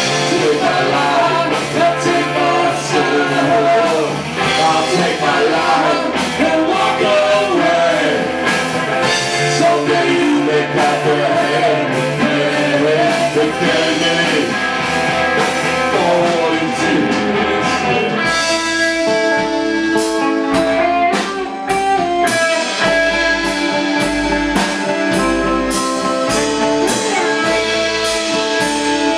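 Live rock band playing a slow power ballad on electric guitar, bass guitar and drums, through guitar amplifiers. A wavering lead melody runs over the first eighteen seconds or so; then the lead drops out and the guitars carry on with long held chords over steady bass notes.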